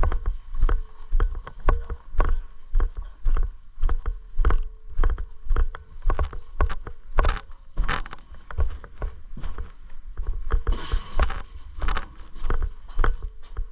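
Footsteps of a person walking on rough ground, a thud about twice a second carried straight to a body-worn camera.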